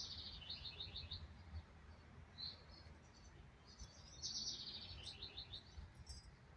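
A songbird singing faintly: two short phrases of quick high notes that step down in pitch, one right at the start and one about four seconds in.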